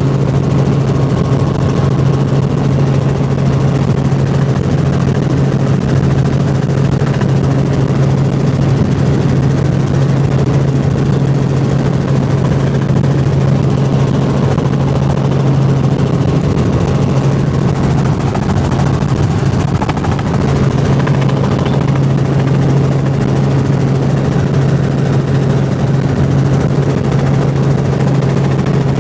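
Helicopter engine and rotors heard from inside the cabin in flight: a steady drone with a strong low hum.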